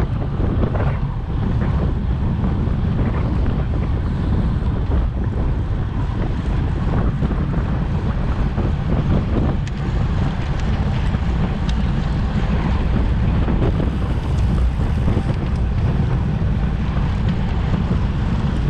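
Steady wind buffeting the microphone of a handlebar-mounted camera on a road bike riding at speed, a loud low rumble throughout.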